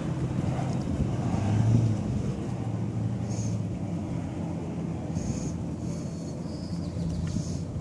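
Steady low engine drone under a rushing noise, with a few short high chirps over it.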